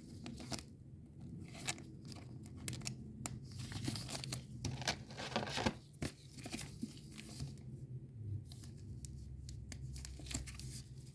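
Crinkling, crackling and tearing of trading-card packaging and foil wrapper as Topps Chrome cards are handled, busiest in the first seven seconds and sparser after.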